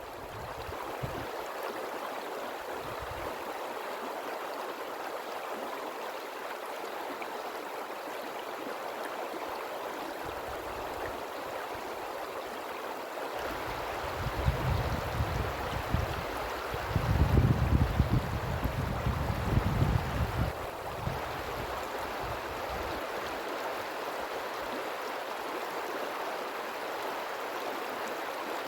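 River water rushing steadily. A low rumble comes and goes in the middle, loudest about 17 to 18 seconds in.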